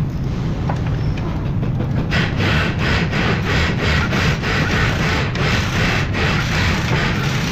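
A hand wrench worked back and forth on a bolt at the upper control arm of a GMC Yukon's front suspension: a rhythmic noise of about three strokes a second, starting about two seconds in, over a steady low hum.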